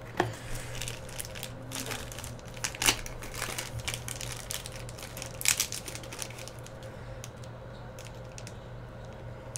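Crinkling and crackling of black plastic wrapping being torn and peeled off a trading-card pack, with a few sharper crackles: near the start, about 3 seconds in and about 5.5 seconds in.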